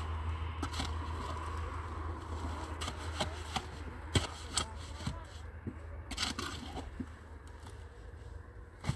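Scattered sharp knocks and clicks, about eight of them, the loudest about four seconds in, over a low steady hum that slowly fades.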